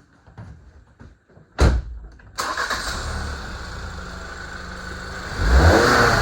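A thump, then the Ford Escape's engine starting up on its first start after a battery replacement and running, with a rising rev near the end.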